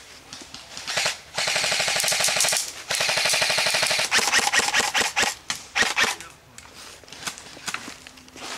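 Airsoft rifles firing two long full-auto bursts of rapid clicking snaps, the second about three seconds long, followed by a few scattered single shots.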